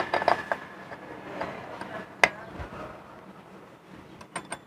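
Metal hand tool clinking and clicking against the parts of a scooter's open CVT: a cluster of clinks at the start, one sharp click about two seconds in, and a quick run of clicks near the end.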